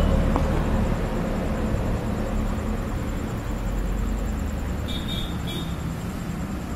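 Steady low background rumble and hum of machinery or traffic, with two short high chirps about five seconds in.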